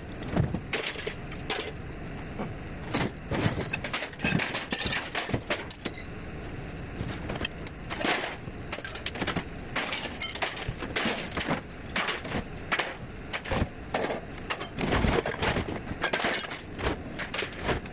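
Loose scrap clattering and crashing in many irregular, sharp knocks and bangs, typical of a small load of mixed scrap being handled and tossed down at a scrap yard.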